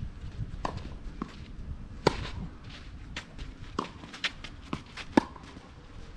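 Tennis ball knocks on a clay court, bounces and racket strikes: about seven sharp, isolated pops at uneven spacing, the loudest about two seconds in and again near five seconds, over a low outdoor rumble.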